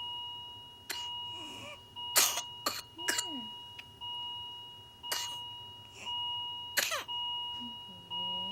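A child coughing in short, sharp bursts during a whooping cough (pertussis) coughing spell. Behind the coughs, a steady two-tone electronic beep keeps sounding, restarting about once a second.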